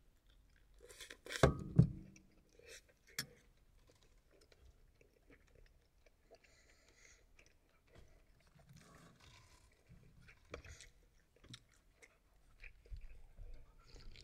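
A person chewing a mouthful of spaghetti, with soft mouth sounds. Two sharp knocks come about a second and a half in, and a third about a second later; these are the loudest sounds.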